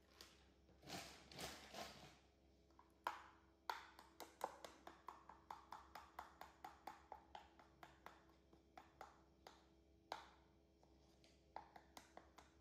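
Metal spoon clinking against a ceramic bowl while stirring batter: a run of light, regular clicks, about three a second, pausing briefly near the end before starting again. A soft rustle comes about a second in, before the stirring.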